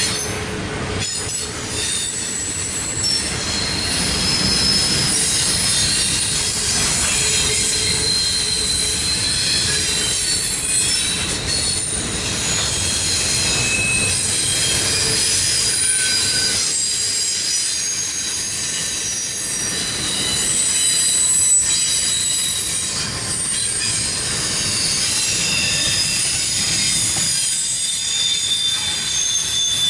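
Double-stack container cars of a CSX intermodal freight train rolling past, with a steady rumble of wheels on rail. High-pitched wheel squeal comes and goes throughout.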